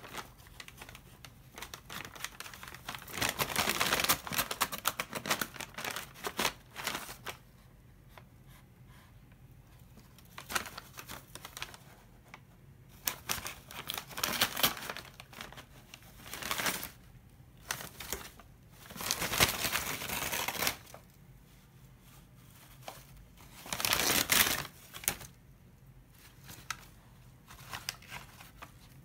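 Brown paper bag rustling and crinkling as a cat paws at it, pounces on it and pushes its head inside. The crinkling comes in repeated spells lasting from about a second to several seconds, with quieter gaps between.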